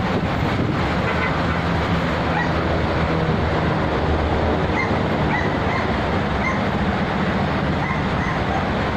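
Steady rumble of road traffic and running engines, with a run of faint short high chirps in the second half.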